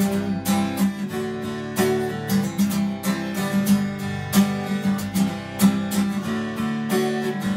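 Acoustic guitar strummed in a steady rhythm, about three strums a second.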